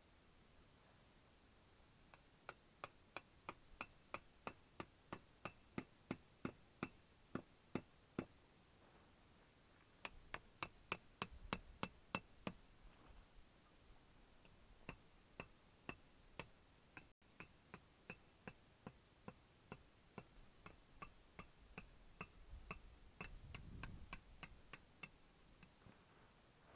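A table knife sawing through a cooked steak on a cutting board, making runs of faint, even clicks as the blade taps the board, about three a second. They come in bursts with short pauses.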